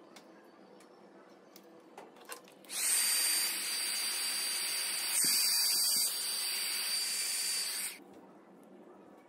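Handheld hot air gun switched on about three seconds in: a steady rush of blown air with a thin fan whine that rises as it spins up. It heats the wire joint on the laser tube's high-voltage terminal for about five seconds, then cuts off. A few faint handling clicks come before it.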